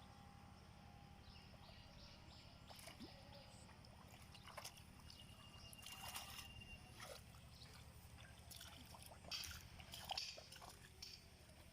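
Faint sloshing and small splashes of shallow water, scattered and irregular, over a steady low hum.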